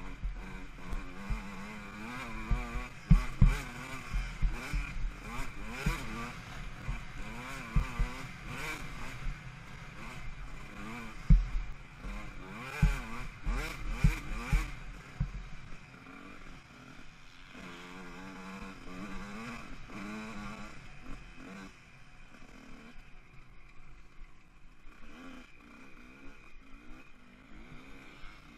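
Motocross bike engine revving up and down over and over as it rides sandy whoops, with heavy low thumps from the bumps through the first half. The engine is quieter over the last few seconds.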